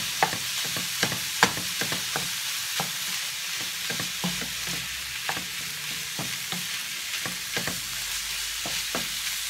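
Ground beef sizzling as it browns in a nonstick skillet, with a wooden spatula scraping and tapping against the pan about twice a second as it breaks up and stirs the meat.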